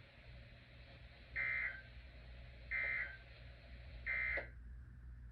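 Emergency Alert System end-of-message signal: three short, buzzy bursts of SAME digital data tones, each about a third of a second long and a little over a second apart. They mark the close of the alert broadcast, and the last burst ends with a click.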